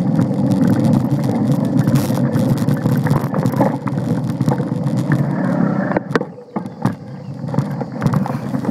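A mountain bike ridden along a dirt trail: a steady, loud rumble of the tyres and the rattle of the bike. About six seconds in it quietens, with a few sharp knocks as the bike goes over bumps.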